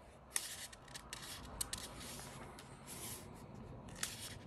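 Paper pages of a hardcover book being turned and smoothed by hand: soft rustling, with sharp page snaps about a third of a second in, about a second and a half in, and near the end.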